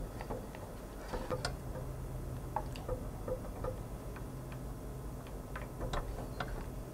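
Silicone spatula stirring thick cocoa glaze in a small enamel pan: irregular light clicks and taps as it scrapes around the pan.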